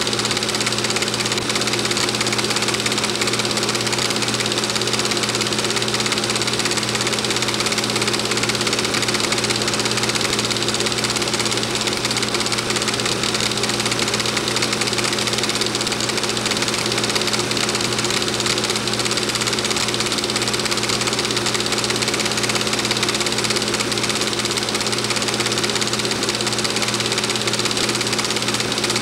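Home-movie film projector running: a steady mechanical whir and light clatter over a constant hum, unchanging throughout.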